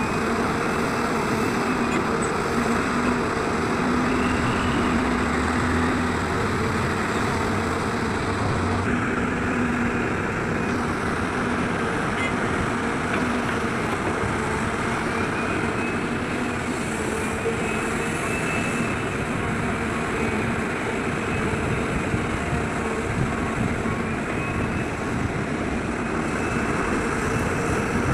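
Heavy diesel machinery running steadily at a work site, typical of an excavator loading a dump truck. A faint high whine rises and falls several times.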